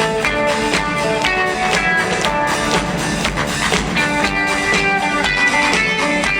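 Live rock band playing through an arena sound system: guitar lines over a steady drum-kit beat, with no singing.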